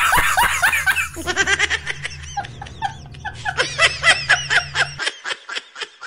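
Laughter: a long run of short, rapid, high-pitched laughs, several a second, loudest at the start and again near the end, with a low steady hum under it that cuts off abruptly about a second before the end.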